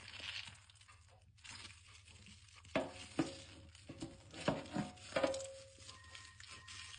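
Household cleaning sounds: a soft rustling scrape, then about five sharp clacks of hard objects being knocked or set down, some with a brief ringing note, in the middle.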